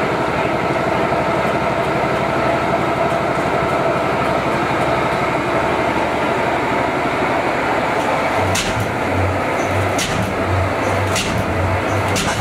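Large multi-cylinder Fairbanks Morse stationary engine starting up: a steady mechanical rush as it turns over, then from about eight and a half seconds in a low rhythmic pulsing and a few sharp cracks as it begins to fire.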